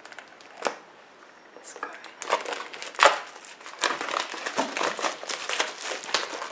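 Plastic shrink-wrap being slit and peeled off a boxed card deck, crinkling in a dense run from about two seconds in, after a single sharp click.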